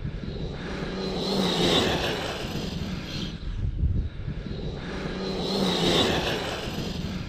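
Radio-controlled short-course truck with a 1717-size 1650kv brushless motor running on grass with cleated wheels. The motor's whine and the tyre noise swell and fade twice as it speeds up and passes.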